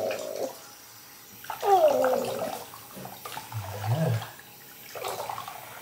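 Water sloshing and splashing in a bathroom sink as hands wash a Labrador puppy, with one drawn-out voice-like sound falling in pitch about a second and a half in.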